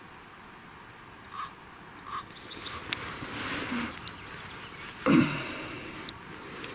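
Crickets chirping in rapid pulsed trills, with rustling and small clicks of handling. A dull thump about five seconds in is the loudest sound.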